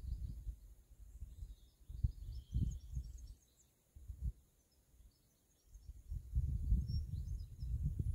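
Wind buffeting the microphone in irregular gusts. It eases in the middle and picks up again near the end, with faint bird chirps high above it.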